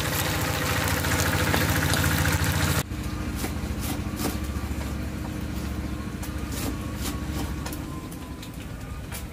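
Small fish frying in hot oil in a wok, sizzling, cut off abruptly about three seconds in. Then a knife tapping irregularly on a wooden cutting board as long beans are cut, over a steady low mechanical hum.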